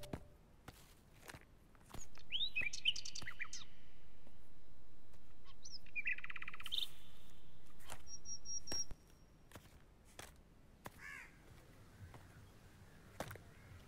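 Birds chirping and calling: bursts of rising and falling chirps and trills, then a short run of high whistled notes. Fainter calls follow near the end, over faint scattered clicks.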